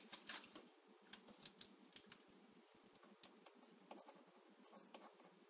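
Faint, irregular clicking of keys being typed. The clicks come thickly for about the first two seconds, then thin out to an occasional tap.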